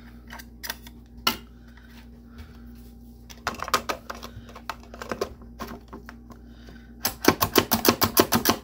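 Manual slap-press food chopper being worked on broccoli: the spring plunger is pushed down again and again, making sharp plastic-and-metal clacks. There are a few scattered clicks at first, then a cluster of clacks, then a fast run of loud clacks, several a second, over the last couple of seconds.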